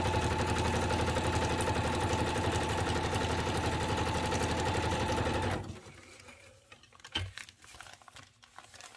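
Sewing machine running steadily at speed as it stitches fabric, then stopping abruptly about five and a half seconds in. Afterwards there are faint rustles and a few light taps as the fabric is handled.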